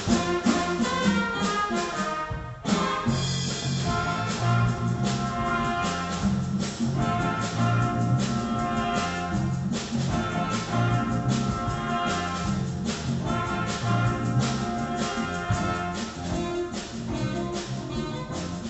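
A school band playing live: trumpets and saxophones over keyboard, electric bass guitar and drum kit, with a steady beat. About two and a half seconds in the band drops out briefly, then comes back in on a sharp full-band accent.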